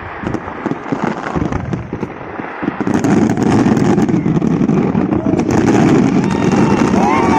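Fireworks popping and crackling in quick succession. About three seconds in, a louder, steady, dense rumble sets in underneath.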